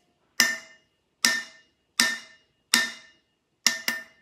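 Scissor handle tapping the top of an epoxy-glittered tumbler, six sharp knocks about three-quarters of a second apart, the last two close together, each with a short ring. The taps knock loose excess glitter from the tumbler.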